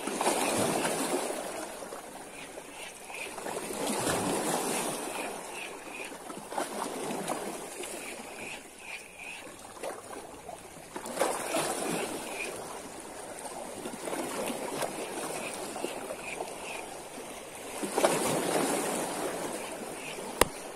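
Seawater washing and splashing in swells that rise and fall four times, with wind on the microphone. Runs of quick light ticks from a baitcasting reel being wound in.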